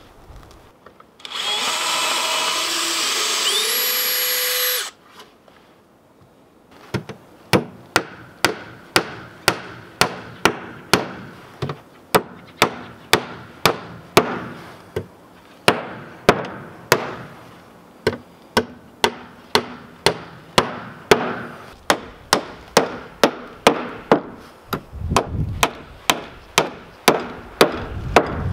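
A cordless drill runs for about three and a half seconds, its pitch sliding up near the end. After a short pause, a hammer strikes the wooden door boards again and again, about two blows a second.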